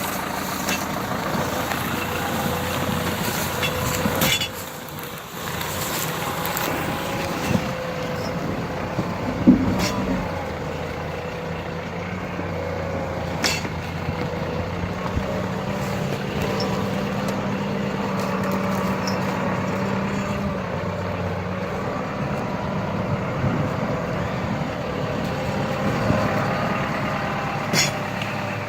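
Deutz 4080E tractor's diesel engine running steadily, with a few sharp knocks scattered through.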